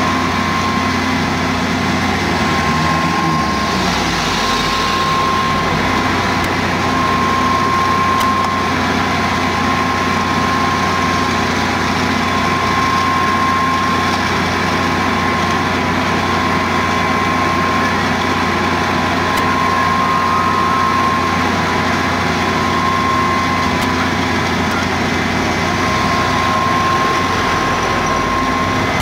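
Fire engines' diesel engines running steadily at the fireground, driving the pumps and the aerial ladder platform, with a constant whine over the low engine hum.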